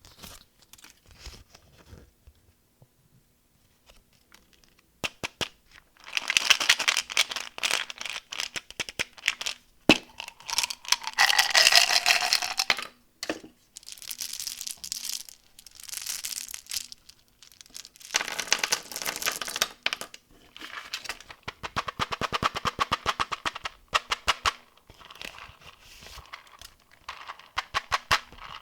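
Candy wrappers being crinkled and torn open by hand in repeated bursts of crackling, after a few quiet seconds with only faint taps.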